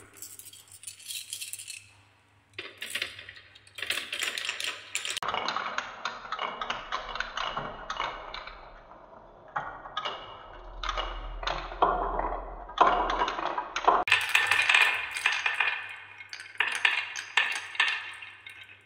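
Many glass marbles rolling and clattering along wooden marble-run tracks, a wavy-grooved wooden slope and a wooden spiral. They make a dense stream of rapid clicks and rattles as they knock against the wood and each other.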